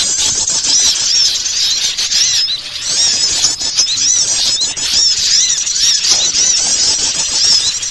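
A noisy chorus of many small songbirds chirping and chattering at once, with high, quick, arched chirps overlapping without a break. This is a bird-lure (pikat) call of small garden birds, played to draw wild birds in.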